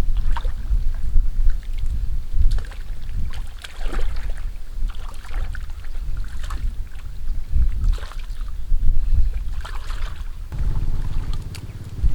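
Irregular splashing and sloshing of water, with a steady low rumble of wind buffeting the microphone.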